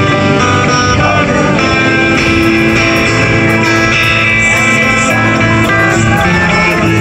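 Guitar-led music, with a regular light ticking beat joining about two seconds in.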